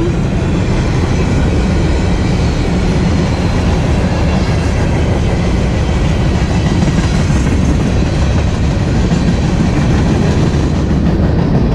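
Freight cars of a long CSX trash train rolling steadily past, loud and continuous wheel-and-rail noise. The cars are taken to be mostly empty.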